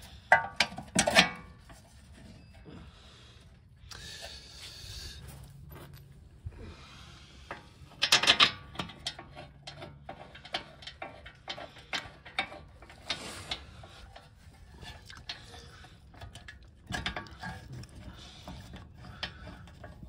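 Hand ratchet clicking in quick runs as the new wheel hub's mounting bolts are turned in, with a few sharp metal clanks of the tool and bolts.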